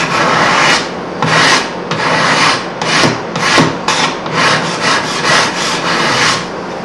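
Steel hand scraper worked in quick, repeated strokes along the edge of a hardwood board, each stroke a dry rasping scrape. It is cutting fine curled shavings, the sign of a sharp scraper.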